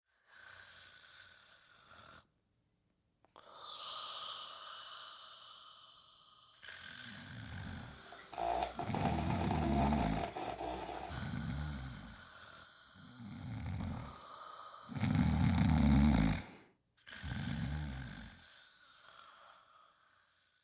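A person snoring heavily: a run of loud, low, rasping snores about every second and a half to two seconds, starting about a third of the way in and loudest near the end, after quieter breathing. The sound cuts out completely twice for a moment.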